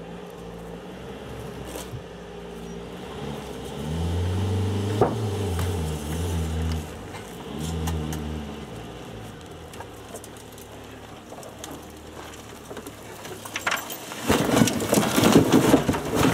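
An engine revs in several bursts through the first half, with one sharp knock among them. Near the end comes loud crashing and clattering of metal as a wrecked car tips over onto its side.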